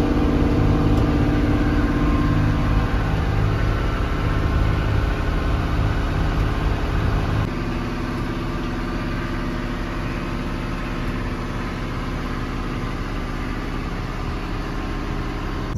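Sailboat's engine running steadily while the boat motors along, a continuous low drone. About halfway through, the drone becomes a little quieter and its tone shifts.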